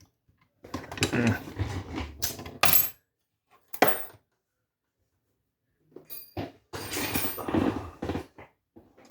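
Metal lock picks and tension tools clattering and clinking as they are handled and sorted, in two bursts with one sharp click between them.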